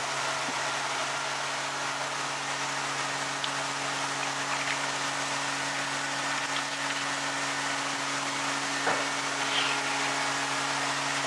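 Steady fizzing hiss of water in a koi viewing bowl, with a constant low pump hum underneath. A faint tap comes about nine seconds in.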